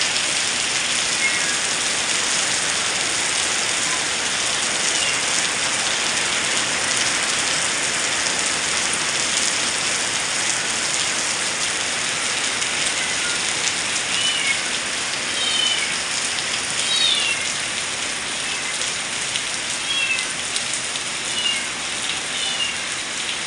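Heavy rain falling steadily. Short, high calls that glide downward in pitch come through it a few times, clustered in the second half: an animal, most likely a cat mewing.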